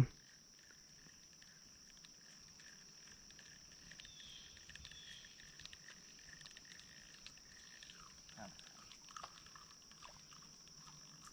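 Faint steady chorus of calling insects and frogs: a continuous high trill, with a lower steady call beneath it that stops about eight seconds in, and a few light ticks.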